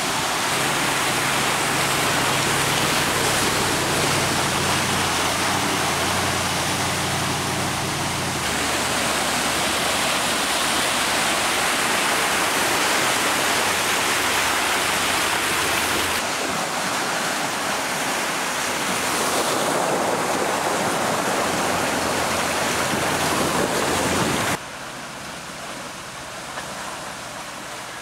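2014 Range Rover Sport wading through a muddy ford: steady rushing and splashing of water pushed aside by the car, with the engine's low, steady hum underneath for the first eight seconds or so. The sound shifts abruptly a few times and is quieter over the last few seconds.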